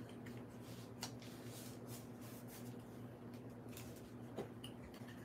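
Faint rustling and light ticks of a cardstock pop-up card being folded and pressed flat by hand, over a low steady hum.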